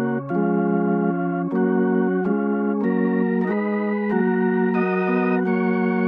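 Tonewheel organ sound (CollaB3, a software emulation of a Hammond B3) playing sustained chords that change about once or twice a second. Each new chord starts with a short key click, and the upper voice climbs higher later on.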